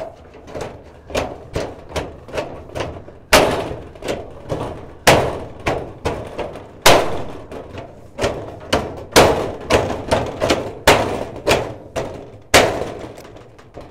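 Steel shed channel being tapped down over the snap-tight lugs along the edge of a corrugated steel roof sheet to lock it on: a run of sharp knocks, a few every second, with louder ones every second or two.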